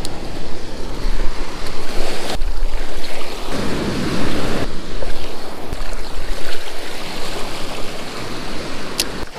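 Ocean surf breaking and washing up a sandy beach, the rush swelling and easing as each wave comes in.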